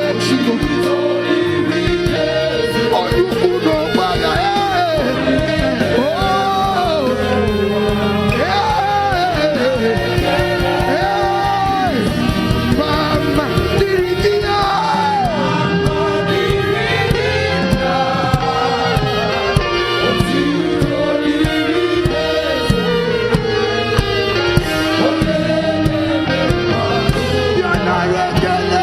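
Live gospel worship music: a sung melody carried by voices over a steady band accompaniment, with a congregation singing along.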